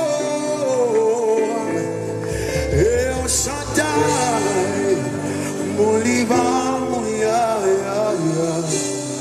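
Live gospel praise music: a man singing a gliding melody over steady band accompaniment with a low bass line.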